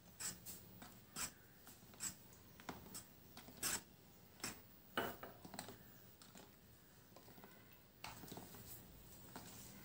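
Spatula scraping against a steel mixing bowl as dry flour and cocoa powder are stirred into a wet banana paste: faint, irregular strokes about once a second, then a softer continuous rubbing for the last couple of seconds.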